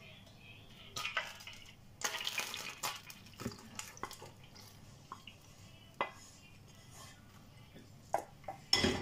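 Wooden spatula scraping and tapping a nonstick saucepan while caramel is poured from it into a loaf tray: scattered scrapes and light knocks, the loudest near the end.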